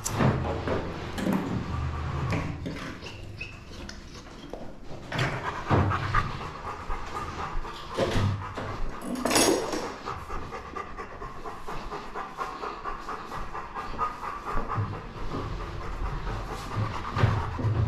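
Bernese mountain dog panting rapidly and continuously, with a few louder knocks along the way.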